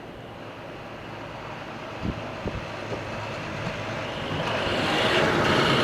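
A vehicle running and drawing nearer, its steady noise growing louder, with a few short thumps about two seconds in.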